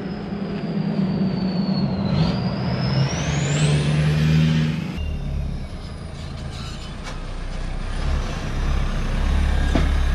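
Nissan NP300 Navara's turbo-diesel engine revving as the ute drives off, with a high turbo whistle climbing in pitch as it builds boost. About halfway through the sound changes to a deeper, steady engine rumble as the vehicle comes back.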